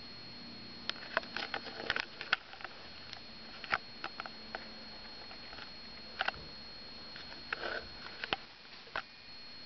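Handling noise from a handheld camera: scattered small clicks and short rustles close to the microphone, over a faint steady high whine from the camera.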